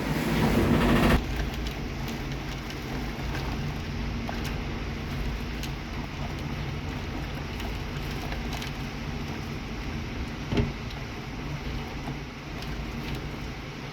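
Storm wind: a loud gust in the first second or so, then a steady rushing noise with a low hum under it and a single thump about ten and a half seconds in.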